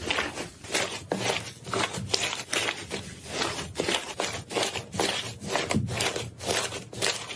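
Slime being squished and pressed by hand, a run of short wet squelching and crackling pops about two or three a second.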